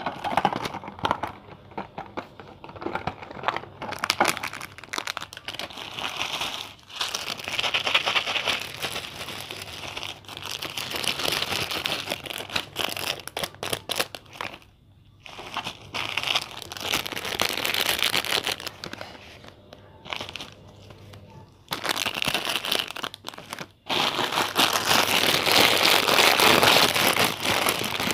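Plastic packaging crinkling and rustling as it is handled and unwrapped close to the microphone, done as ASMR. It comes in uneven stretches with a few brief pauses and is loudest near the end.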